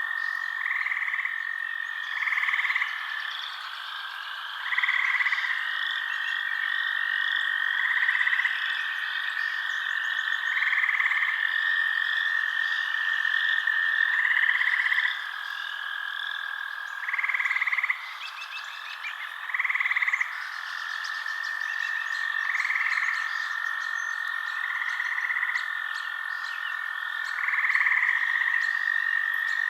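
Night chorus of calling frogs: a steady high trill under a louder call that repeats about every two to three seconds, with fainter chirping higher up.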